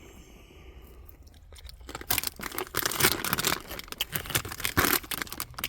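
A bag of plantain chips crinkling and crunching in a string of short crackles that starts about two seconds in.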